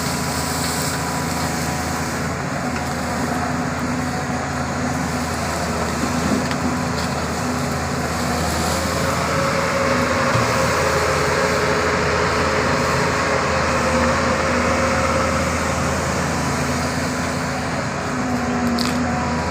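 Doosan 225 hydraulic excavator's diesel engine running steadily under work, with a steady hum that grows a little louder in the middle.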